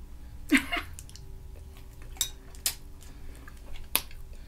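Eating sounds from a seafood boil eaten by hand: a wet mouth sound about half a second in, then a few sharp clicks and smacks as shrimp are peeled and eaten.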